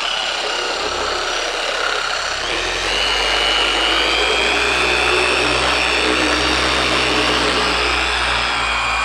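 Dual action polisher with a wool cutting pad running steadily on the aircraft's painted fuselage, spreading cutting compound for a heavy cut on oxidized paint. About three seconds in, its pitch steps up and it gets a little louder as the speed is raised.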